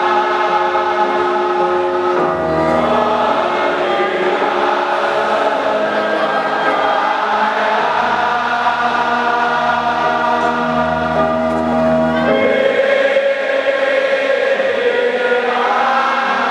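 Large football crowd singing a slow song together in unison, holding long notes that change pitch every few seconds.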